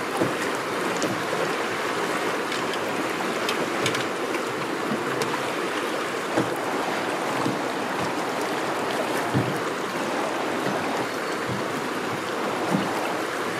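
Choppy river waves splashing against a small boat's hull: a steady rush of water, with a few faint knocks now and then.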